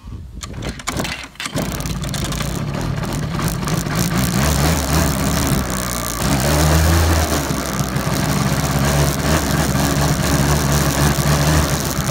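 Small kick-start engine being kicked over, catching about a second and a half in and then running steadily, with a brief rise in revs around six seconds in.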